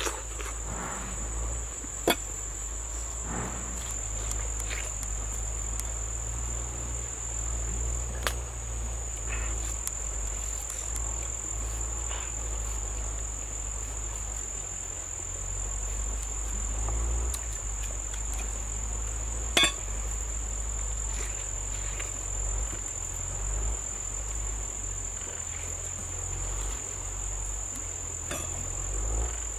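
Steady, high-pitched chorus of insects trilling without a break, with a few sharp knocks standing out, the loudest near twenty seconds in.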